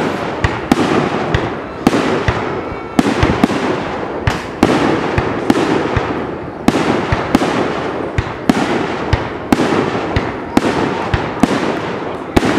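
Aerial firework shells bursting in quick, irregular succession, a sharp bang every half second to second, with echoing noise filling the gaps between them.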